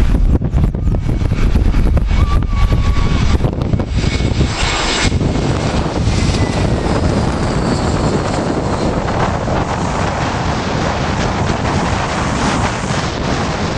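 Airbus A321 jet airliner passing on its landing, its engine roar building about four seconds in with a faint sliding whine, then slowly easing off. Gusty wind buffets the microphone throughout.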